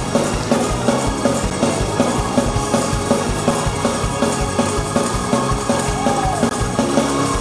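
Fast gospel praise-break music, with a drum kit keeping a quick, steady beat of about four strokes a second.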